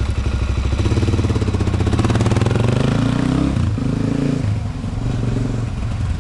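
Suzuki DR-Z400SM's single-cylinder four-stroke engine running through a White Bros aftermarket exhaust as the bike pulls away and accelerates. The pitch climbs, breaks briefly a little past halfway, then carries on as the sound grows fainter toward the end.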